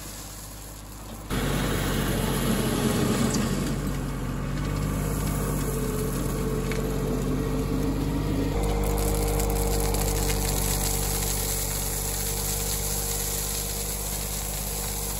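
John Deere 2210 compact tractor's three-cylinder diesel engine running steadily during front-loader work, with gravel scraping under the loader bucket and pouring out of it.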